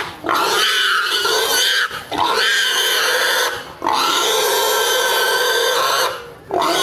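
Domestic pig squealing as several men wrestle it down and pin it to the ground. It is a string of long, loud squeals, each one to two seconds, with brief gaps for breath between them.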